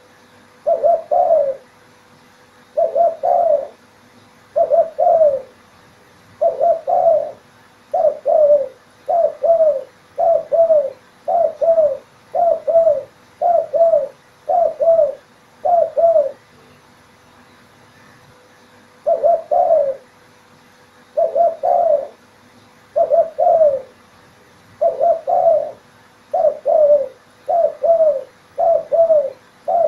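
Spotted dove (terkukur) cooing: short phrases of two or three low notes, repeated about every one and a half to two seconds, with a pause of a couple of seconds about halfway through.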